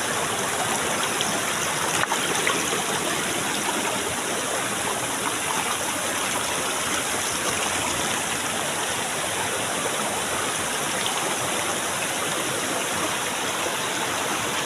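Steady, even rush of water from a waterfall and the stream it feeds.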